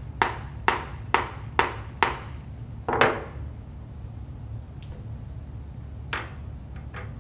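Wooden mallet tapping a metal letter stamp held against the forehead: five sharp knocks about two a second, then a heavier blow with a brief ring about three seconds in. A couple of light metal clicks follow near the end as the stamps are set down on the table.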